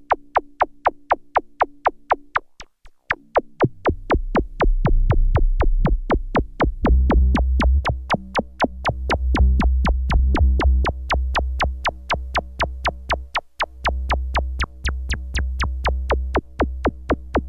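Electronic jam on a Behringer Neutron analog synthesizer: fast, even clicking percussion at about five hits a second over a held synth drone. The drone drops out briefly near 3 seconds in, then a deep bass comes in and grows louder from about 7 seconds in.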